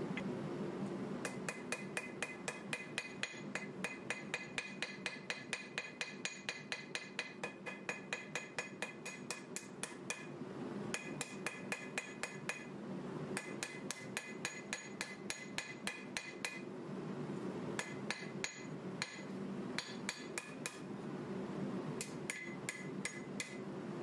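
Hand hammer forging a hot 1095 steel knife blade on an anvil: rapid blows, about four a second, in several runs broken by short pauses. Each blow rings brightly off the anvil.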